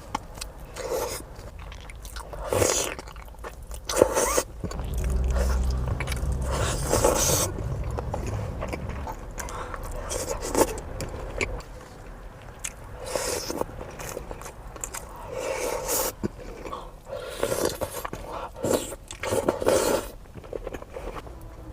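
A person eating close to the microphone: repeated bites and chewing, with scraping sounds in between.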